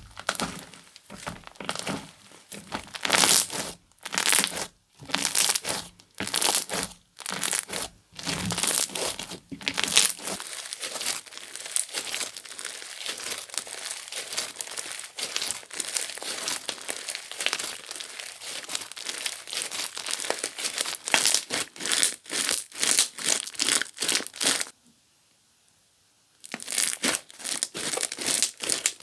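Comelly Slime 'Guacamole' slime being squished and stretched by hand. For the first third, loud irregular squishes come with short pauses between them; then a dense run of fast small clicks and pops follows. The sound cuts out for about two seconds near the end, then picks up again.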